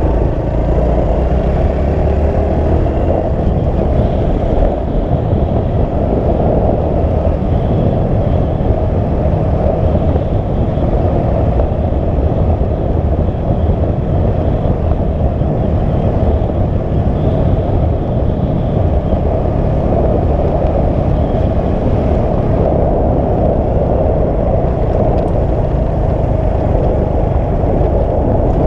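Steady, loud rumbling noise of a vehicle in motion, with no distinct events.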